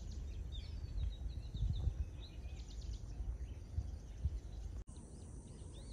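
Scattered bird chirps over a low, gusting rumble of wind on the microphone, with a brief dropout about five seconds in.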